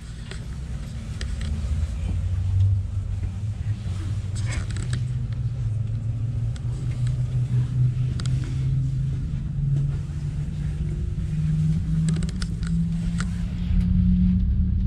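Nordkette cable car cabin rumbling as it moves, heard from inside, with a low hum that rises steadily in pitch as it gathers speed. A few sharp clicks break in now and then.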